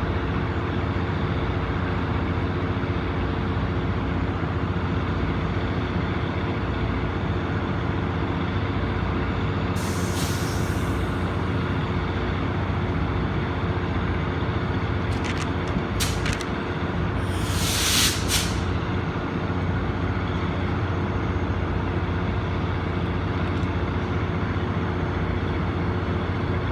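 Tri-Rail commuter train standing with a steady engine hum, broken by a short hiss of released compressed air about ten seconds in, a few sharp clicks around fifteen seconds, and a louder air hiss about eighteen seconds in.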